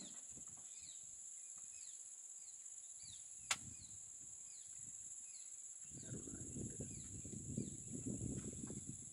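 Steady high-pitched insect drone with a bird repeating short falling chirps about twice a second. A single sharp click comes about three and a half seconds in, and a low uneven rumble joins from about six seconds in.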